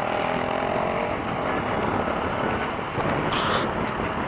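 Wind rushing over the microphone while riding a Honda Wave underbone motorcycle, with the engine running underneath; a steady engine tone fades about a second in.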